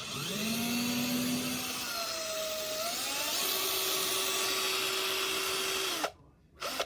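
KELNOW 21V cordless drill running: the motor spins up with a whine that shifts in pitch twice, then stops suddenly about six seconds in, followed by one short burst of the motor near the end.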